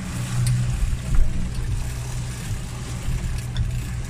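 Boat engine running steadily with a low hum, over the rushing wash of water around the hull.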